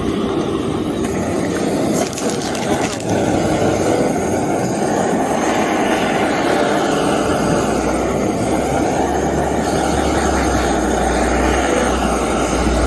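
Handheld butane gas torch on a cartridge can, its flame jet hissing steadily as it is held on a tray of cherry wood chips to light them for smoking. There are a couple of clicks about two and three seconds in.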